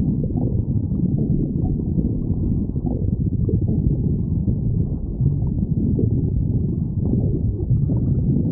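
A person's stomach growling, with continuous low gurgling and rumbling that never stops.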